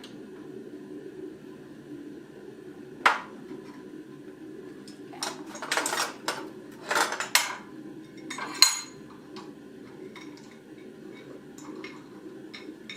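Scattered metallic clanks and knocks of blacksmith's tools and steel on the anvil: one clank about three seconds in, a cluster of several around the middle, and a clink with a short ring a little later, over a steady low hum.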